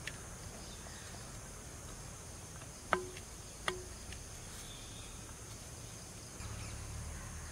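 Steady high-pitched chirring of insects, with two short clicks a little under a second apart about three seconds in.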